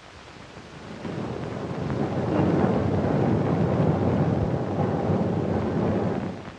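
Street noise, a dense even din, swelling up over the first two seconds, holding, then falling away shortly before the end.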